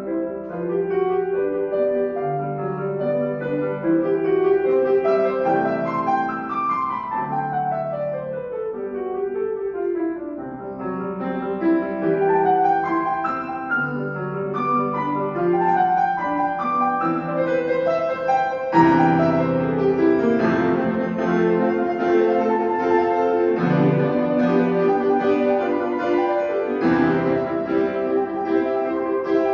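Piano playing a classical piece, with a quick descending run about a quarter of the way in and heavy, deep-bassed chords struck several times in the second half.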